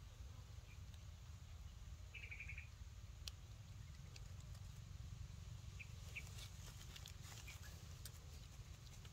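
Near silence: faint outdoor background with a low rumble, one short high chirp about two seconds in, and a few light clicks and rustles later on.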